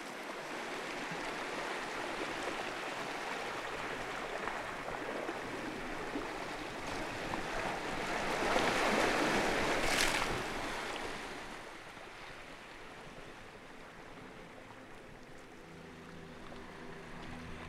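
Ocean surf rushing, swelling to a loud breaking wave about ten seconds in and then falling away. A low steady hum comes in near the end.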